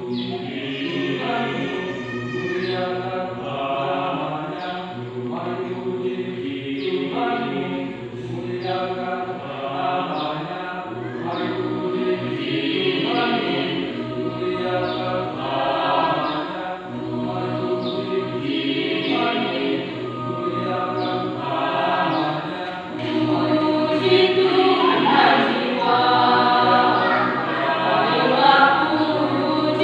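Women's church choir singing a hymn together, growing louder about two-thirds of the way through.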